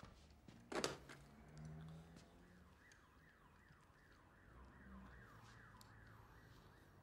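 A faint electronic alarm or siren with a repeating falling sweep, about two sweeps a second, begins about two and a half seconds in. It is preceded by a single short knock about a second in.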